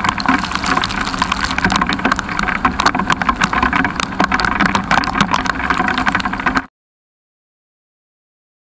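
Rain and wind noise on a motorcycle rider's wet microphone, loud and full of constant crackles over a faint engine drone. The rain has spoiled the recording. The audio cuts to dead silence about six and a half seconds in.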